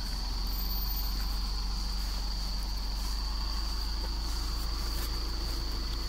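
Isuzu D-Max 3.0 Ddi four-cylinder turbodiesel pulling at low, steady engine speed as the loaded 4x4 pickup crawls up a muddy dirt track. A steady high-pitched insect drone runs over it.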